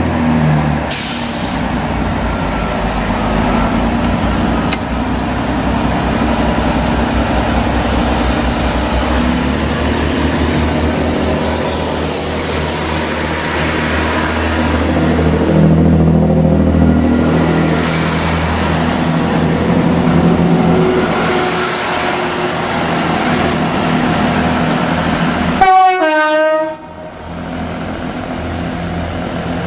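Trains at a station platform: the steady drone and rumble of a GWR Class 166 diesel multiple unit and passing train noise. About 26 seconds in, a short, loud train horn blast sounds, its pitch dipping.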